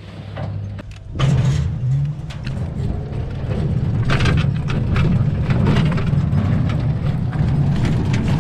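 A motor engine running, its low rattling drone rising sharply in level about a second in and then holding steady as the vehicle gets under way.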